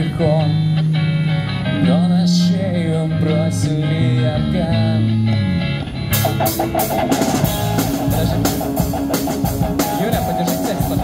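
Street rock band playing live through a small amplifier: bass guitar holding low notes under a wavering electric guitar melody. About six seconds in the drum kit comes in with a steady beat and cymbals under strummed guitar.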